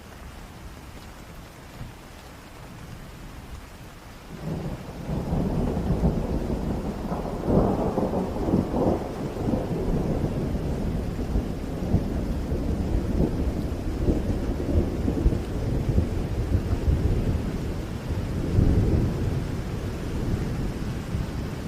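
Heavy rain falling steadily. About four seconds in, a long low roll of thunder breaks in and rumbles on through the rest, crackling loudest a few seconds after it starts.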